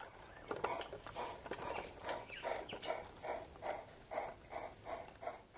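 Model garden-railway goods train rolling slowly past, its wagon wheels clicking on the track in a regular rhythm of about three clicks a second.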